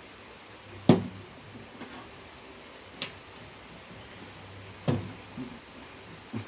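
Four short, sharp knocks spread out a second or two apart, the first the loudest, the middle one a thin high click.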